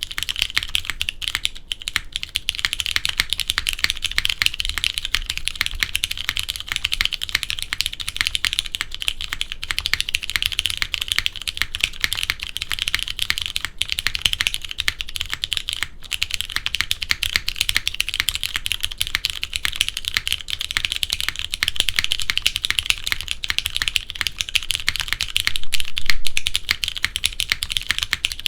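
Fast, continuous typing on a JJW Moment mechanical keyboard with Cherry MX Brown tactile switches mounted on a polypropylene (PP) plate. The keystrokes form a steady stream of clacks, broken by a couple of brief pauses about halfway through.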